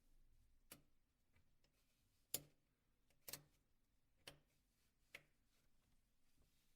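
Faint, sharp metal clicks, five in all and about a second apart, the loudest about two and a half seconds in: a dental tool and tweezers prying and lifting the thin metal shielding lids off the phone's engine board.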